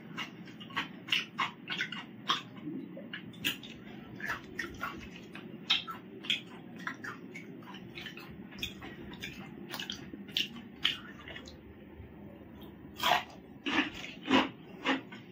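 Close-up wet chewing and lip-smacking of a person eating with his fingers: a quick, irregular run of short smacks, several a second, loudest in a cluster near the end. A steady low hum runs underneath.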